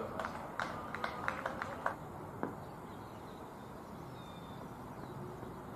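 A handful of short, sharp clicks in the first two seconds and one more a little later, over a quiet, even outdoor background.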